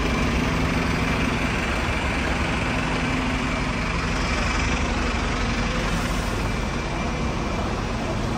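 Steady city street traffic noise, with an engine running and a low steady hum throughout.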